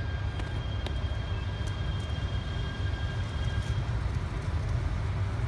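E3 series Shinkansen train rolling slowly in on the tracks with a steady low rumble. A thin, high, steady whine runs along with it and stops about two-thirds of the way through.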